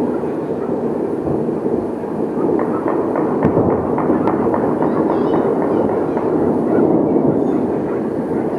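Fireworks barrage: aerial shells bursting one over another in a continuous rumble. A run of sharp cracks comes between about two and a half and four and a half seconds in.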